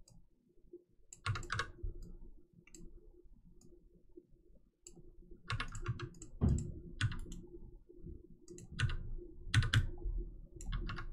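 Computer mouse and keyboard clicks, coming in small clusters of a few at a time with short pauses between, over a faint steady hum.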